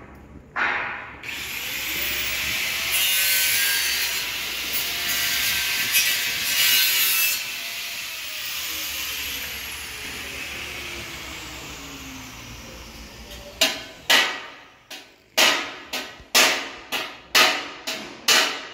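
A power tool spins up with a rising whine and runs with a loud hissing, grinding noise for several seconds. It then winds down with a falling whine. Near the end come about ten sharp strokes, roughly two a second.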